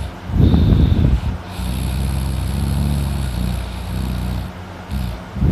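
A sleeping man snoring loudly: a harsh rattling snore about half a second in and another starting at the very end, about five seconds apart, with a long steady low drone between them.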